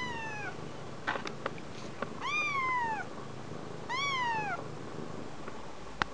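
Young kitten meowing three times, each meow rising then falling in pitch, calling to be lifted down from the bed.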